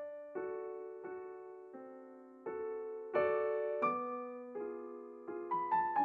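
Background solo piano music: notes and chords struck one after another, roughly every half to one second, each one fading away before the next.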